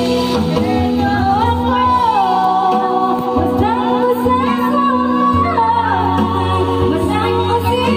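A woman singing karaoke into a microphone, her voice amplified through loudspeakers over a music backing track.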